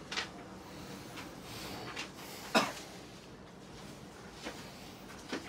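Quiet room tone with a handful of brief soft knocks and rustles, the loudest about two and a half seconds in.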